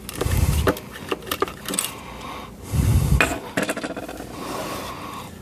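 Plastic multimeter case and circuit board being handled on a workbench: scattered clicks and taps of hard plastic, with a couple of dull thumps as parts are set down.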